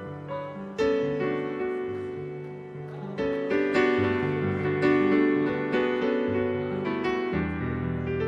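Piano playing slow, sustained chords, a new chord struck every second or so, as worship music behind prayer.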